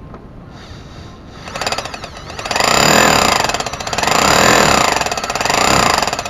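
Bosch GBH 5-40 DE rotary hammer running with its hammer action working: a rapid hammering chatter that starts about a second and a half in, rises and falls three times, and stops near the end. The hammering is the sign that the tool's lost impact has been fixed.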